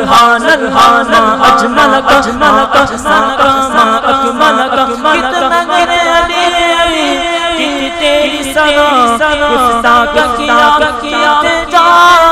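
Unaccompanied male voices singing an Urdu devotional kalam (naat) through microphones, the notes sustained and bending in a melismatic style, with a second voice joining the lead.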